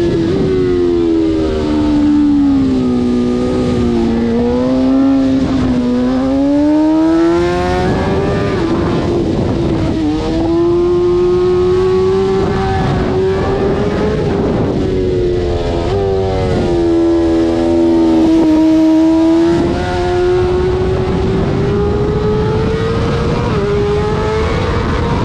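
Sport bike engine at full track pace, heard from the rider's helmet. Its pitch sinks over a few seconds early on, climbs again, then jumps several times with quick gear changes, all over a steady rush of wind.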